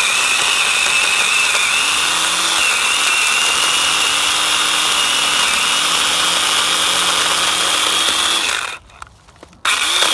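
Ryobi One+ OPP1820 18-volt cordless pole saw running, its motor and 8-inch chain giving a steady high whine. It stops about nine seconds in and starts again a moment later.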